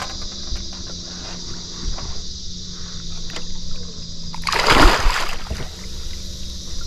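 A single loud splash of water about four and a half seconds in, over a steady high insect buzz and a low steady hum, with a few small knocks.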